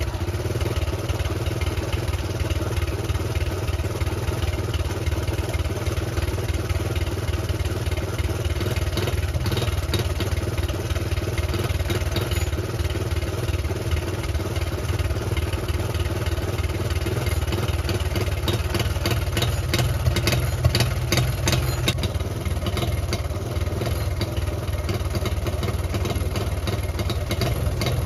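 Honda Cub C70's small single-cylinder four-stroke engine idling steadily, picking up a little about twenty seconds in. It is running rough, which the owner puts down to a dirty carburettor starving it of petrol.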